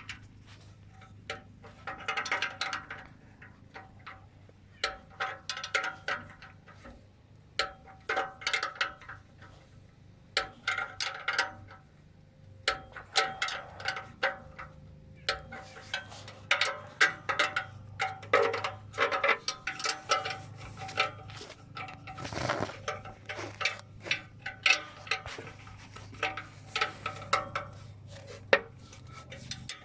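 Hand tools and exhaust parts clicking and clinking in irregular clusters, with brief metallic ringing, as a muffler and tailpipe are fitted. A low steady hum runs underneath.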